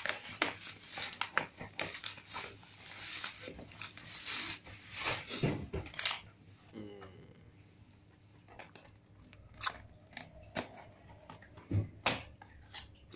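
Scissors cutting through bubble wrap and packing tape, with crinkling and tearing plastic for about the first six seconds. Then scattered taps and knocks as a cardboard box is handled and the scissors are put down.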